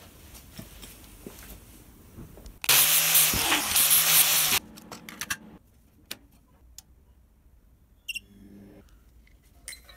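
Grinder with a flap disc running for about two seconds, grinding a chamfer onto the broken end of a key to prepare it for welding, then cutting off. Scattered small clicks and knocks follow.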